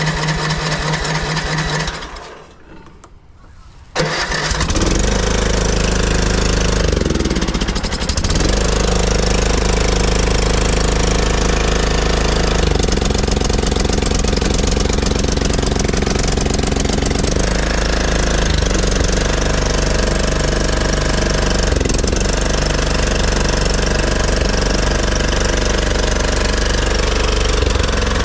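Craftsman LT1500 riding mower engine being cranked by its starter for about two seconds, then cranked again about four seconds in, when it catches and runs. Its speed dips and recovers a few seconds after starting, then it runs steadily. It is on a replacement carburetor whose low-speed jet has just been drilled out to cure surging.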